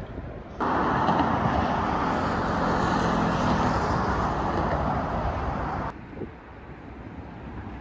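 Steady noise of a vehicle in motion, cutting in suddenly about half a second in and cutting off just before six seconds, leaving quieter wind noise.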